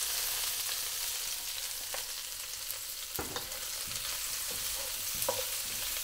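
Fried chicken thigh pieces sizzling in hot oil with garlic in a steel wok. They are stirred with a wooden spatula that knocks against the pan a few times.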